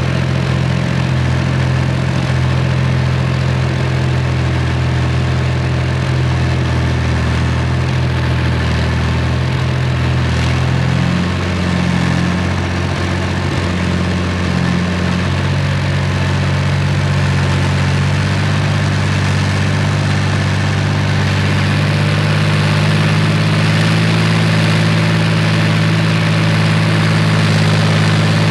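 BVP-1 (BMP-1) infantry fighting vehicle's UTD-20 V6 diesel engine running as the vehicle drives, heard from on top of the hull. The engine note shifts between about 11 and 15 seconds in, then holds steady and grows a little louder near the end.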